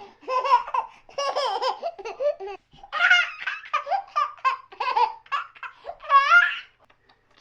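A baby laughing in a run of short, high-pitched bursts with brief breaths between them, loudest in two bouts about three and six seconds in.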